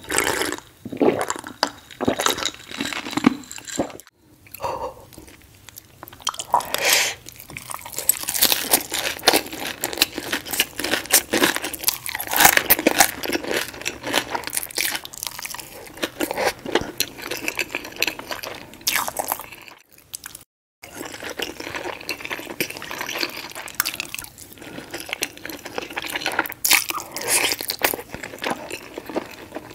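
Close-miked chewing and crunching of crispy breakfast food such as bacon and hash browns, a steady run of crackly bites and mouth sounds. It is broken by two brief silent gaps, about four seconds in and about twenty seconds in.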